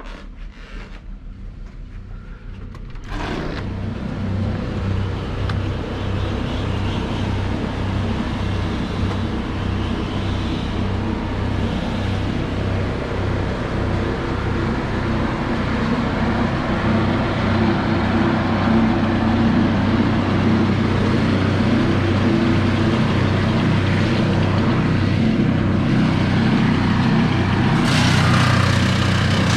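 An engine starts up abruptly about three seconds in and runs steadily, growing slightly louder, with a further rise near the end.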